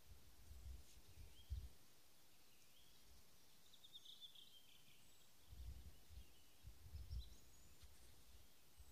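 Near silence outdoors: faint, scattered bird calls, with a small cluster of chirps about four seconds in, and a few low rumbles of handling or wind on the microphone.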